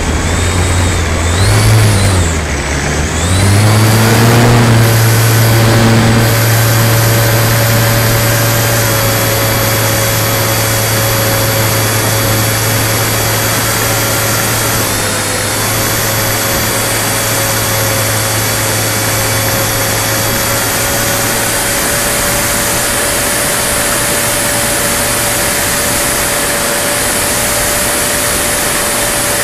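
RC model Spitfire's motor and propeller running at power, heard from a camera on the wing. The pitch dips and climbs again in the first few seconds, then holds a steady drone with a thin high whine as the plane takes off and climbs out.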